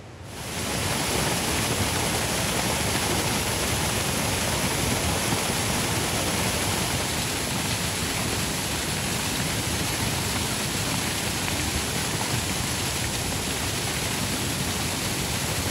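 Stream water rushing close to the microphone: a steady, loud hiss that comes in about half a second in.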